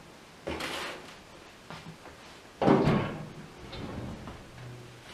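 Metal clanks and scrapes of a cast-iron wood cookstove's oven door being worked open and a metal baking tray being set on the stovetop. There is a scrape about half a second in, and the loudest, sharp ringing clank comes about two and a half seconds in.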